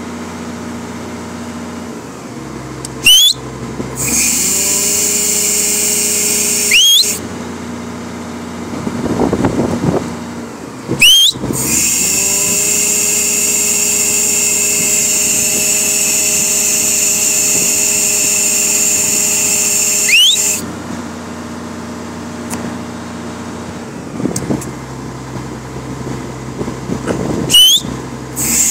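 Caterpillar 345C L excavator's diesel engine and hydraulic pump running with oil flowing through an analog hydraulic flow tester. Twice the sound swells into a loud, high hissing whine as the oil is forced through the tester under load, the second stretch the longer. Between these it falls back to a lower hum, with short rising squeals as the load changes.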